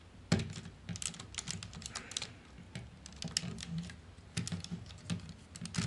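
Irregular clicks and taps from handling a Takara Masterpiece MP-36 Megatron transforming figure, its parts and joints clicking as the skirt panel is worked open; the sharpest click comes shortly after the start.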